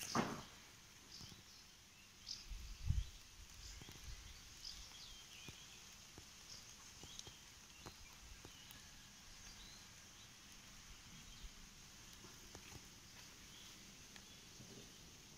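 Faint, scattered bird chirps in a quiet garden, with a few low thumps about three seconds in.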